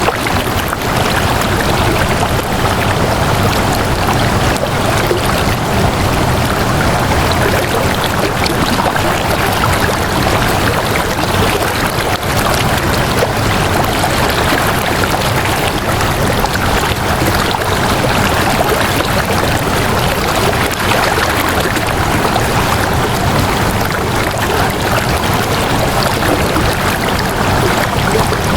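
Flowing water running steadily and evenly, like a stream.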